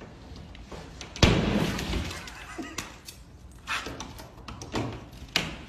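Drywall smashing as an arm punches through it from the other side: one loud crash about a second in that trails off in crumbling, then a few smaller knocks.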